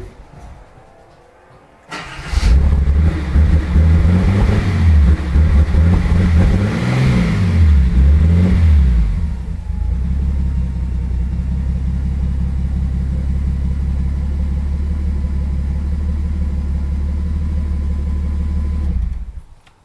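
A Datsun Z car's straight-six engine starting after sitting for about eight months: it catches about two seconds in and is revved up and down on the throttle, then settles into a steady fast idle with a thin steady whine over it. The engine sound stops abruptly near the end.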